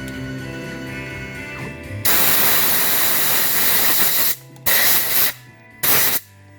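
Background guitar music, then a loud hissing spray: one blast of about two seconds, followed by two short bursts, as when air or fluid is sprayed onto the work to clear chips or cool it.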